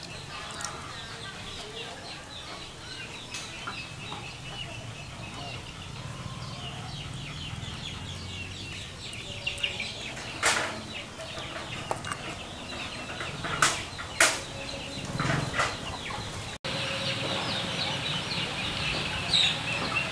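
Chickens clucking and birds chirping steadily in the background, with a few sharp clicks in the second half.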